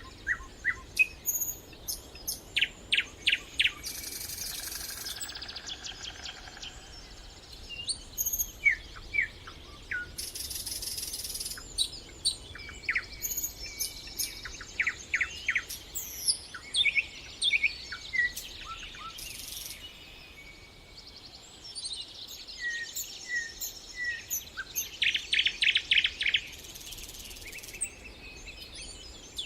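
Several songbirds singing and calling: quick high chirps and rapid trills, overlapping, with a few short buzzy high-pitched passages.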